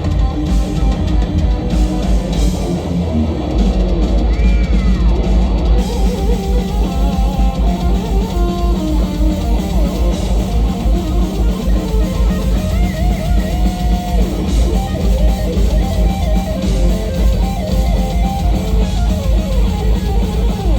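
Live instrumental heavy metal played loud by a band: a lead electric guitar plays melodic lines with pitch bends and held notes over heavy drumming.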